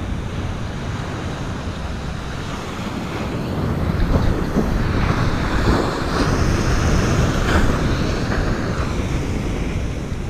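Wind buffeting the microphone over the steady wash of ocean surf breaking on the beach.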